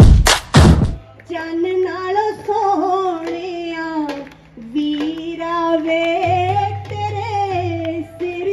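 A loud drumbeat for about the first second, then a woman singing a melody into a microphone through a PA, over a low steady backing tone.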